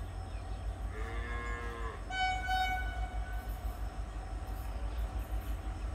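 Distant locomotive horn on an approaching train: a lower wavering note about a second in, then a higher steady note for about a second, over a steady low rumble.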